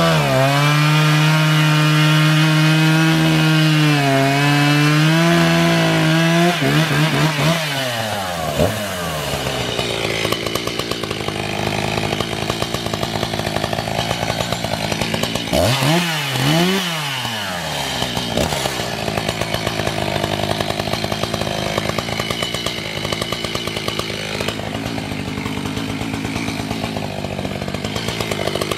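Echo CS-590 Timber Wolf two-stroke chainsaw at full throttle cutting through a white oak log for about the first six seconds. The throttle is then let off and the engine falls to idle. It is blipped up and down twice about halfway through, and revs up again at the very end.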